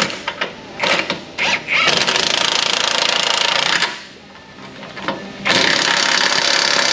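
A few metal clinks as bolts are started by hand, then an impact gun run in two bursts of about two seconds each, driving in the two rear bushing bolts.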